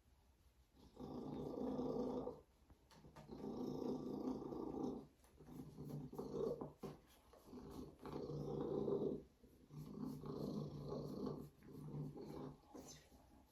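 Savannah cat purring in rough, steady stretches of one to two seconds each, broken by short gaps as it breathes in and out.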